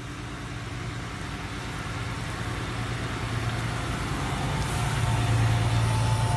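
A vehicle engine running steadily, growing gradually louder.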